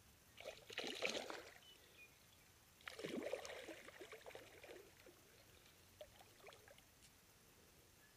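Water splashing around a hooked northern pike at the surface as a hand reaches in to grab it. There are two splashing bursts, one about a second in and a longer one around three to five seconds in.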